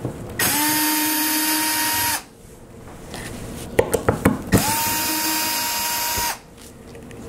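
Cordless drill/driver backing screws out of a wooden box lid. It runs twice, each time for about two seconds: the motor whines up to speed, holds steady, then stops suddenly. A few clicks and knocks sound between the two runs.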